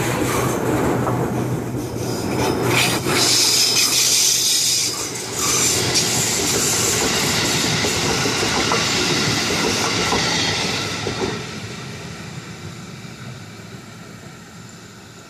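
Ex-JR 205 series electric commuter train running past on the rails, its wheels rolling and clattering over the track. It is loud and steady for the first ten seconds or so, then fades away from about eleven seconds in as the train recedes.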